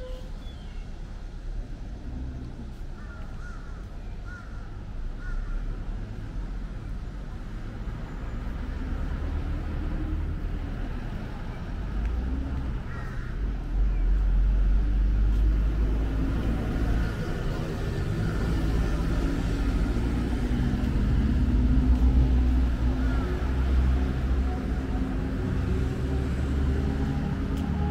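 Motor engine rumble of passing traffic, building up and growing louder through the second half. A few short bird calls come early on.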